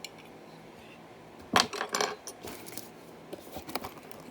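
A sharp clatter of small hard objects about a second and a half in, followed by a few lighter clicks and knocks, as the just-opened LEGO set box and its bagged plastic pieces are handled.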